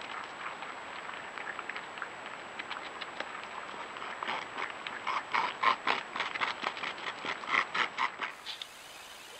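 Beaver gnawing a cottonwood trunk: teeth scraping and biting into the wood in rapid short strokes, about four a second. The strokes grow louder about five seconds in and cut off abruptly about eight seconds in.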